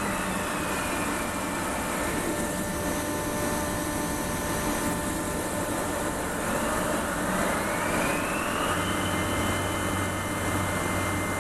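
Soraluce Soramill TL-35 bed-type milling machine running under power with a steady mechanical hum and hiss. About two-thirds of the way through, a drive whine rises in pitch and then holds steady, as an axis or spindle speeds up.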